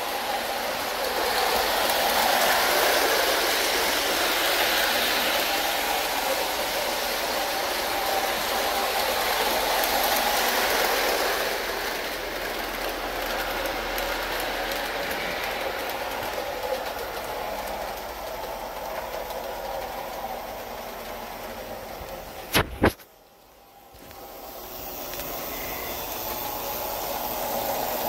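Lionel O gauge electric model trains running on three-rail tubular track: a steady whir of the motors and gears with the rumble of metal wheels on the rails. About three-quarters of the way through there is a sharp click and a brief lull before the running sound builds back up.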